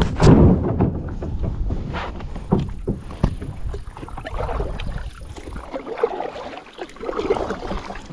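Kayak paddling: the double-bladed paddle dipping and pulling through lake water, with splashing along the plastic hull about every second or so and a few small knocks. Loudest at the very start.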